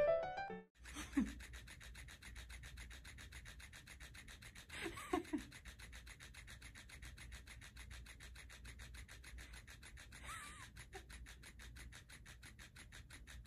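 Faint rustling of a cat shifting against a plush fish toy and soft bedding, over a low steady background with a fast, even ticking. There are brief soft squeaks about five seconds in and again near ten seconds.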